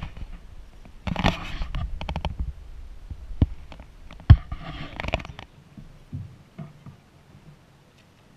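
Kayak paddle strokes splashing and dripping in calm water, with two sharp knocks about three and a half and four seconds in, the second the loudest sound. It quietens to a faint lapping after about five and a half seconds.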